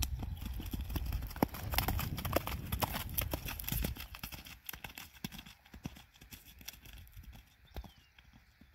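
Hoofbeats of a sorrel quarter pony mare on a muddy dirt road, a steady run of sharp clip-clops. They are loudest for the first few seconds, then grow fainter as the horse moves away.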